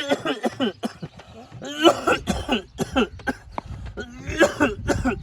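A man coughing in several harsh, hacking fits about a second apart, with strained voiced sounds in them; an acted cough, the character's persistent 'dog cough'.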